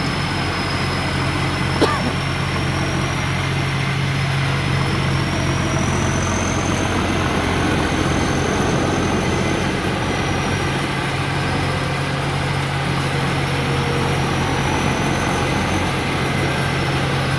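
Combine harvester's diesel engine running steadily under load, with the machine's high whine slowly drifting up and down in pitch. A single sharp click about two seconds in.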